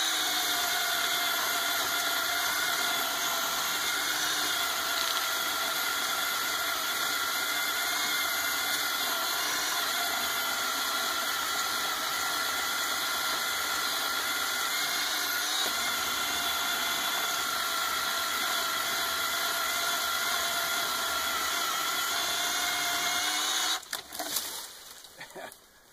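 Ryobi One+ 18-volt 10-inch cordless chainsaw (P546) sawing through a dead cherry trunk about 4 inches thick. Its electric motor whines at a steady pitch under load for about 24 seconds, then cuts off as the cut finishes near the end.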